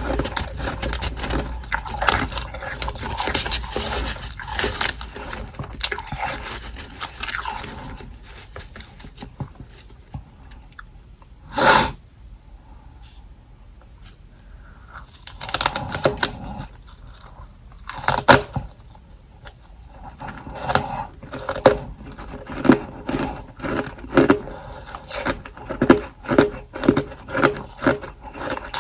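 Humidifier frost from a freezer being bitten and chewed: dense crackling crunches, one loud sharp crunch about halfway through, then a steady run of chewing crunches, more than one a second, near the end.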